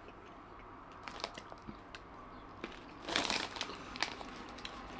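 Crunching and chewing of Andy Capp's Fire Fries, crisp snack sticks, with the foil snack bag crinkling. Sharp crackles are scattered throughout, and the loudest burst comes about three seconds in.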